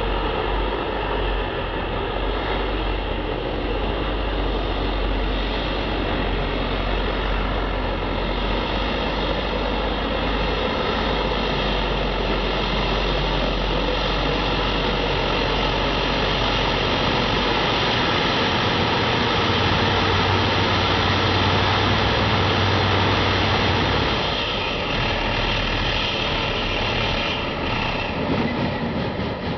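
John Deere Pro Stock pulling tractor's turbocharged diesel engine running hard under load, a steady loud drone that eases slightly near the end.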